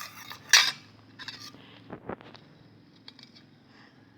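A spoon stirring a glue-and-water slime in a container, clinking and scraping against it, with the loudest clink about half a second in. The slime is still sticky and is being stirred further.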